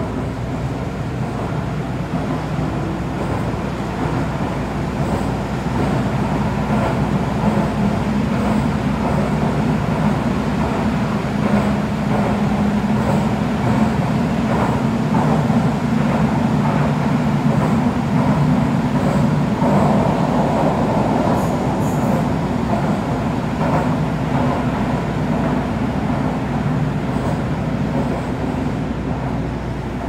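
Interior running noise of a Toei Oedo Line 12-000 series linear-motor subway car in a tunnel: a steady low rumble that builds in the first few seconds. It eases off near the end as the train slows for the next station.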